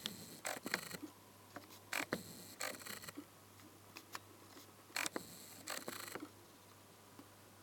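Scattered small clicks and short scrapes of a new microchip being handled and set in place on a car radio's circuit board, in several clusters over the first six seconds.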